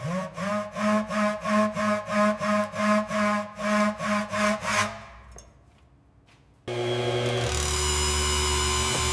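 Saw cutting through wood in quick back-and-forth strokes, about three a second with a buzzy ring, stopping after about five seconds. About seven seconds in, a steady loud machine hum starts.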